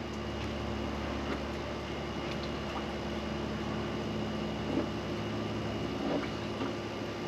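Steady low mechanical hum from a running machine, with a couple of faint soft knocks from a knife working through a tuna fillet on the cleaning table.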